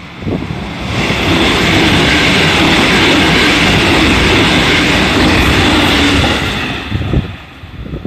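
A JR 313 series electric multiple unit passing close by at speed: loud, steady rushing of wheels on rails and car bodies, which builds over about the first second and fades near the end.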